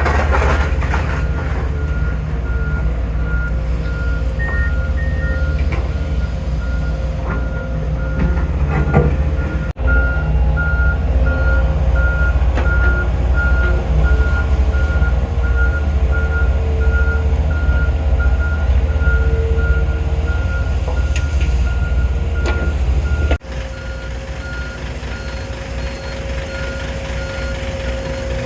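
A heavy construction vehicle's reversing alarm beeping at a steady, even pace over the low rumble of its diesel engine. The engine rumble drops abruptly about 23 seconds in while the beeping carries on.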